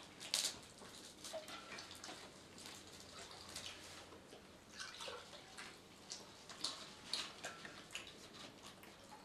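A ladle scooping liquid from a metal bowl and pouring it into cups: faint pouring and dripping, with scattered light clinks of ladle, bowl and cups, the sharpest just after the start.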